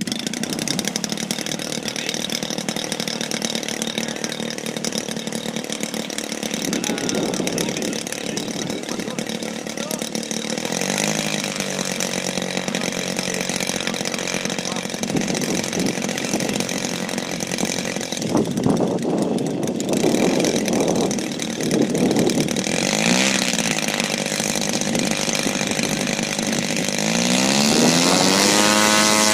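Small two-stroke engine of a radio-controlled model airplane running, its pitch rising and falling with the throttle several times and climbing sharply near the end to hold a high, steady note. It is running again after its ignition was replaced.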